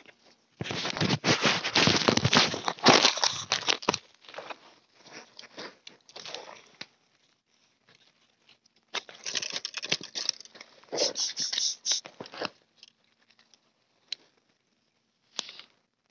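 Two bursts of close crackling and rustling handling noise, each about three seconds long, with gravel scraping, then a few sharp clicks near the end.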